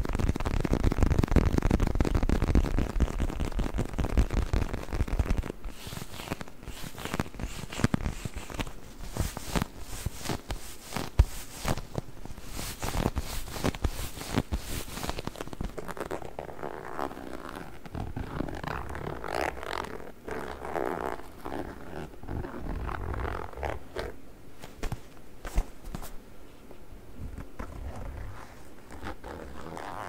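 Faux-leather neck pillow handled right against the microphone: heavy squeezing and rubbing for the first five seconds or so, then a run of quick, sharp scratching strokes on the leather, then softer rubbing.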